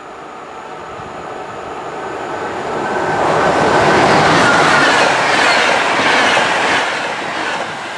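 Electric VR InterCity train of double-deck coaches approaching and passing at speed. The noise of its wheels on the rails swells, is loudest about four to six seconds in, then eases as the train goes by.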